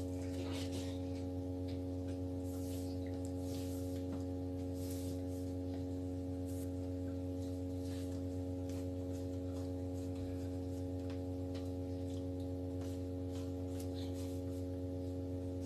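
Steady electrical hum made of several constant tones, with faint soft taps and rustles of chicken pieces being dipped in flour.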